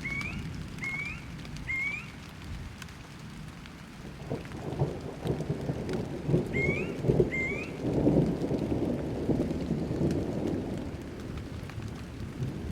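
Thunderstorm: steady rain with rolling thunder that rumbles loudest in the second half. Short rising chirps sound three times at the start and twice just after the middle.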